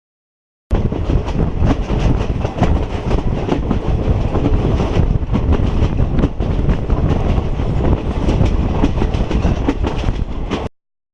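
Train running along the track: a steady rumble with the wheels clattering over the rails. It starts abruptly under a second in and cuts off abruptly near the end.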